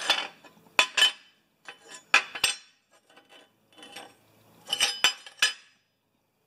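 Welded steel snowblower skids clinking and knocking against a steel workbench as they are picked up, turned over and set down by hand, a series of sharp metal clinks in small groups with quiet gaps between.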